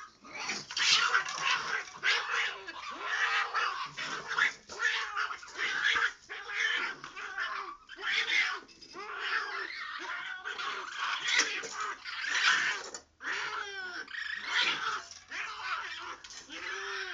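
A cat and a raccoon fighting: a long run of harsh, screeching yowls, one after another with short breaks and a brief lull about 13 seconds in. It is the sound of a mother cat defending her kittens against the raccoon.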